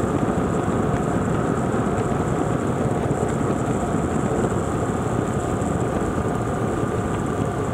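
BMW R 1200 GS motorcycle riding at cruising speed: steady rush of wind and road noise with the boxer-twin engine droning evenly underneath.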